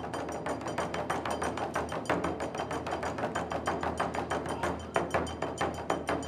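Japanese taiko drums played in a fast, steady rhythm of sharp, clacking strikes, several a second, with a few heavier accented hits about five seconds in.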